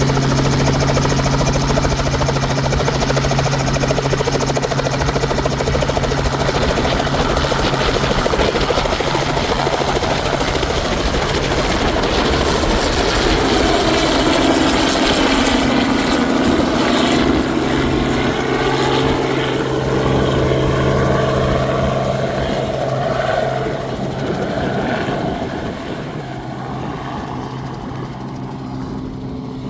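Helicopter running close by and lifting off. Its steady beat and engine tone shift in pitch midway as it climbs away, then grow fainter over the last several seconds.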